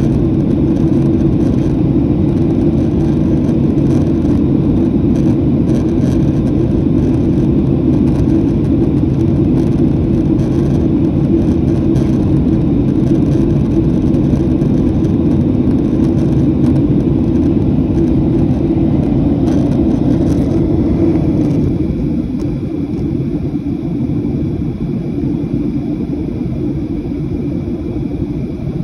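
Boeing 737 cabin noise heard from a window seat: a steady, deep rumble of jet engines and rushing air. About three quarters of the way through, it drops a little in level and gets duller.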